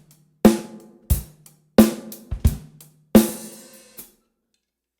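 Drum kit playing a short groove, bass drum and snare drum alternating. The snare, tuned tight with a coated head, is played in its normal state, and its ring carries between hits. The last snare hit comes with a ringing cymbal, and the playing stops about four seconds in.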